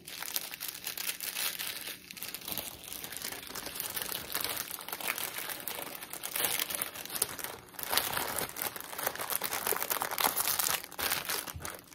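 Small clear plastic bags of diamond painting drills crinkling and rustling as they are handled, with many small crackles throughout.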